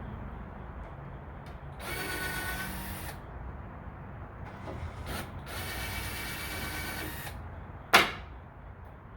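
Power drill running in two short spells of about a second or more each, with a brief blip between them, most likely backing screws out of the crate's boards. Near the end comes a single sharp knock, the loudest sound.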